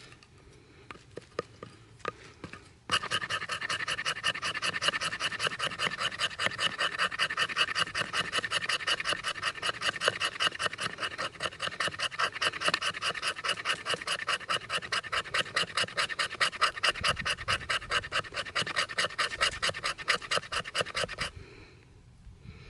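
Hand saw cutting through wood in quick, even back-and-forth strokes. The sawing starts about three seconds in after a few light knocks and stops a little before the end.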